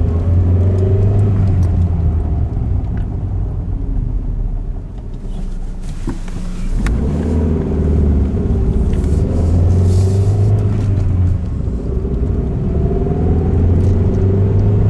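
1997 Ford Escort with its four-cylinder engine and 5-speed manual gearbox on the move: steady engine and drivetrain hum, dipping in level for a couple of seconds near the middle, then picking up again. The car shows a rattle when coasting, which turned out to come from a failing manual transmission.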